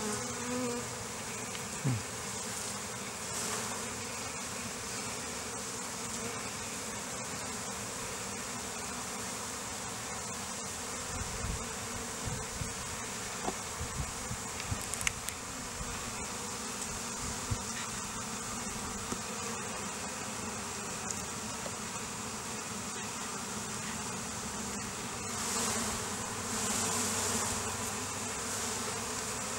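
Honeybees buzzing steadily in large numbers around an opened hive, with a few light knocks from wooden frames being handled.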